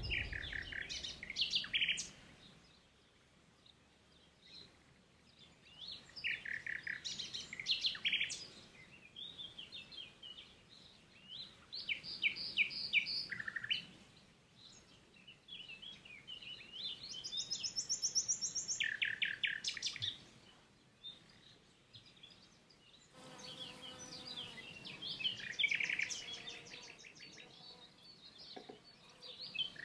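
Wild songbirds singing: varied phrases of chirps and fast trills, with short pauses between phrases.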